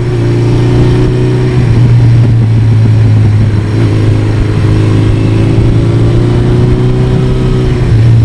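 1982 Suzuki GS1100E's air-cooled inline-four engine running under way at a steady cruise, heard up close from the bike. The engine note holds fairly even and eases down slightly near the end.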